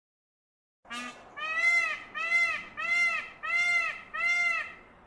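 Indian peafowl (peacock) calling: a short rising note, then a quick run of five loud, arched calls about two-thirds of a second apart, starting about a second in.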